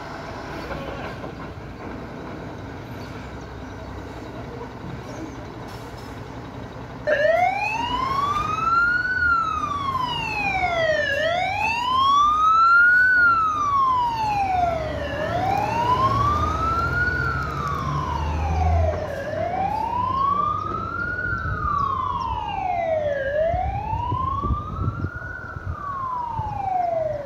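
Fire engine's siren switches on about a quarter of the way in and wails, slowly rising and falling about once every four seconds. Under it runs the truck's engine, heaviest as it passes close by.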